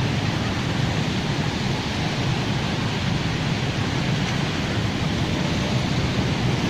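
Steady rushing noise of motorbikes and a car driving through floodwater, the water splashing and sloshing around their wheels.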